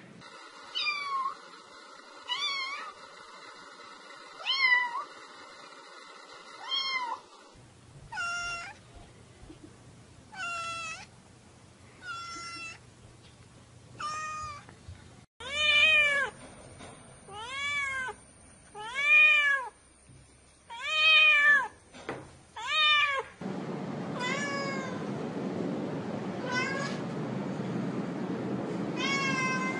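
A cat meowing over and over, one meow every one to two seconds. The meows in the middle stretch are the loudest and rise then fall in pitch. A steady hiss sits under the last few meows.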